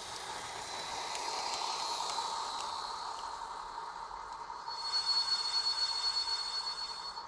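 Sound decoder in a TT-scale LVT 172 railbus model playing the railbus's diesel running sound through the model's small loudspeaker as it approaches, getting louder. About four and a half seconds in, a high steady tone joins it and then cuts off abruptly.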